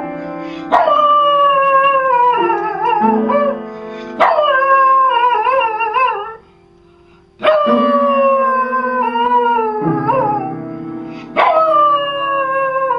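Small dog howling at an upright piano while pressing its keys with its paws. There are four long howls, each sliding down in pitch and wavering at the end, over held low piano notes. A short quiet gap falls just past the middle.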